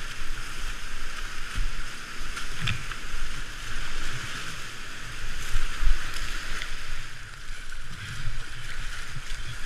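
Rushing roar of flood-swollen whitewater rapids around a kayak, with splashing and irregular low thumps.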